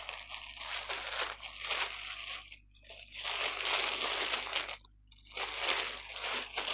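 Clear plastic packaging around a mesh screen door crinkling as it is handled and turned, in a few stretches with brief pauses between.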